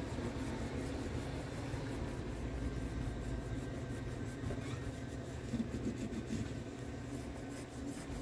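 Steady low rumble of background noise from a neighbour's activity, with a few faint steady tones over it.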